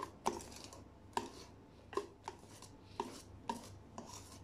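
Wire whisk mixing melted chocolate into cake batter in a stainless steel bowl: uneven taps of the whisk against the bowl, one to two a second, over a faint swish of batter.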